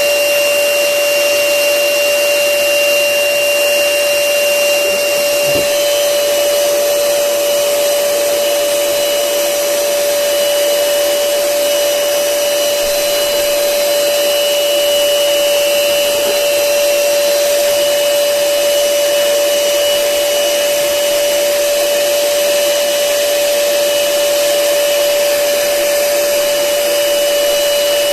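Electric air blower running steadily as it inflates a giant balloon: a continuous motor rush with a constant mid-pitched whine.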